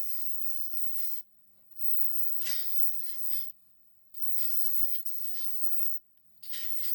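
Abrasive hissing from a grinder or sanding work on the knife's steel blade, in passes of one to two seconds separated by abrupt short breaks, over a steady low electric hum.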